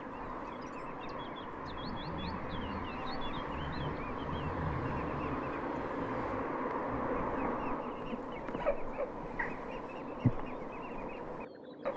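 Many small birds chirping and peeping over a steady outdoor background hiss, with a single short thump about ten seconds in.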